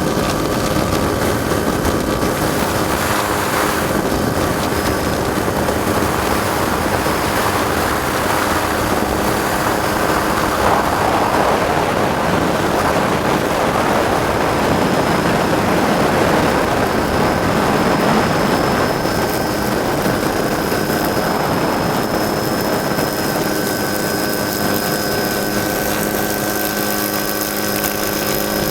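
Helicopter running steadily, heard from aboard: a constant rush of rotor and engine noise with several steady engine tones and a thin high whine, swelling slightly in the middle.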